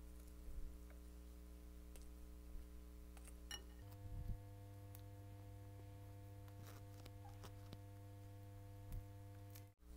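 Near silence over a steady low electrical hum, with a few soft clicks and low thumps from close-miked eating: bhatura torn by hand, dipped in chole and chewed. The hum's pitch pattern shifts about four seconds in.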